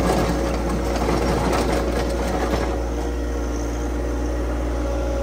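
Loader's engine running steadily while its box blade and scarifiers scrape through driveway gravel. A rough grinding rattle fills the first few seconds, then eases off after about three seconds, leaving mostly the engine.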